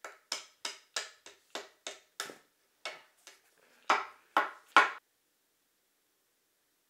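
A hand tool knocking on a wooden skateboard deck, tapping the mounting bolts down through the deck's holes: about a dozen sharp knocks at an uneven pace, the last three loudest, and then they stop.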